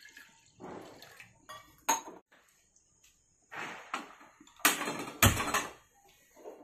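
Stainless steel saucepan and kitchen vessels clattering and knocking on a gas stove, in a series of short bumps and scrapes. There is a sharp clink about two seconds in and a heavier knock about five seconds in.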